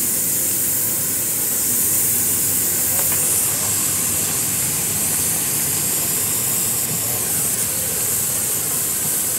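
Steady hiss of steam venting from a 1.5-inch-scale live-steam locomotive, over the low rumble of a miniature train running on 7.5-inch-gauge track.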